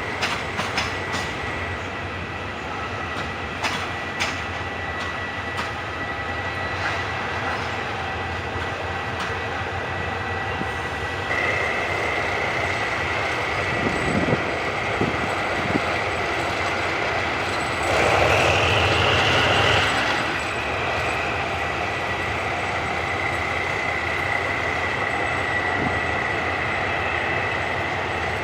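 A train moving through the station: wheels clicking over rail joints under a steady high-pitched wheel squeal, with the running noise growing louder about 11 seconds in. A louder burst of about two seconds comes around 18 seconds in.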